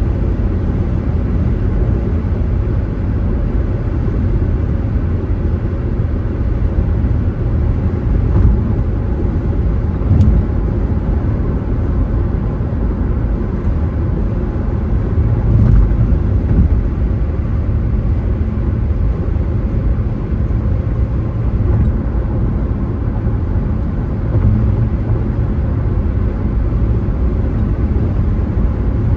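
Car being driven, a steady low rumble of road and engine noise, with a few soft bumps along the way.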